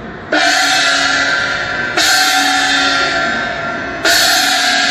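Background music: three loud, sudden crashing chords about two seconds apart, each ringing on and slowly fading.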